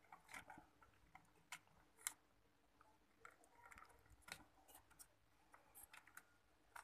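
Faint, scattered clicks and taps of a CPU cooler being handled and set in place over the processor on a motherboard.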